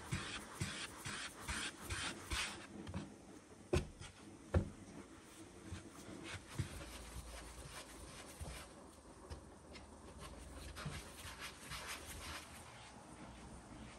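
Kitchen handling work: short scraping, rubbing strokes about twice a second, two sharp knocks around four seconds in, then another run of scraping strokes later.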